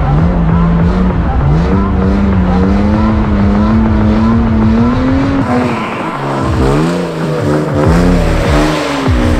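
A drift car's engine held at high revs, its note climbing slowly. About halfway through, the revs sweep up and down quickly several times.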